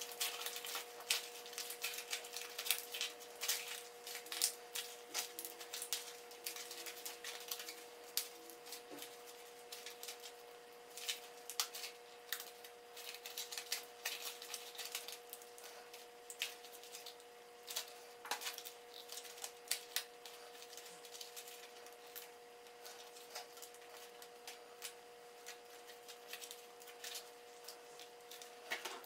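Aluminium foil being crumpled and pressed by hand: irregular crinkling and crackling, busier in the first half, over a steady faint hum.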